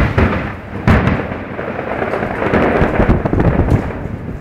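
Aerial fireworks shells bursting in a continuous rumble of booms, with a sharp bang about a second in.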